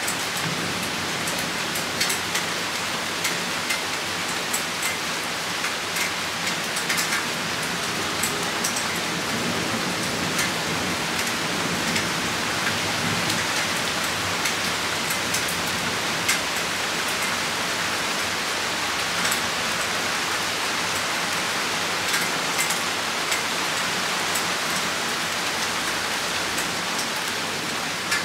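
Rain shower falling steadily, with many sharp drop ticks scattered through it.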